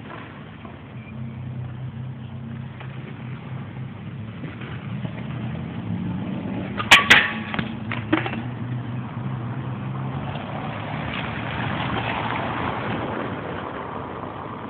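Skateboard wheels rolling on pavement with a steady low rumble. About seven seconds in come sharp clacks of the board popping a trick as the skater jumps at a bench, and a smaller knock about a second later.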